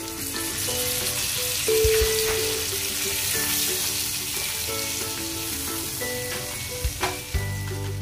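Beef and broccoli sizzling as they are stir-fried in a pan, with a few knocks of the spatula against the pan around two seconds in and near the end. Background music plays along.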